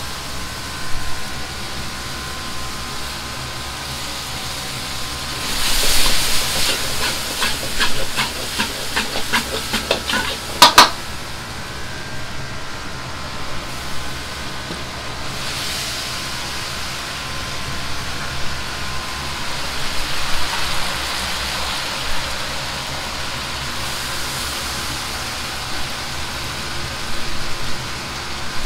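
Liver, pork belly and cabbage sizzling in a wok over a high gas flame while a metal ladle stirs and tosses them, scraping and knocking against the wok. There is a quick run of clicks about six to ten seconds in, ending in one sharp metal clang. The wok burner gives a steady rush underneath.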